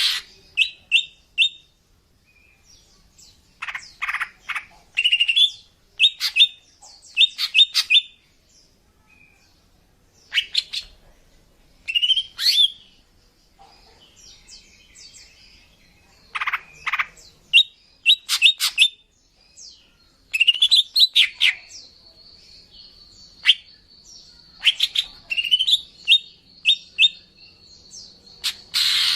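Female cucak ijo (green leafbird) calling: short bursts of quick, high chirps and sweeping whistled notes, broken by pauses of a second or two. A thin steady high tone runs beneath the calls for the last several seconds.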